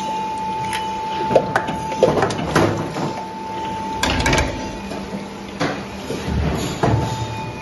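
Niigata 100-ton injection moulding machine running: a steady whine that drops out about four seconds in and returns near the end, with a series of clunks and knocks from the machine.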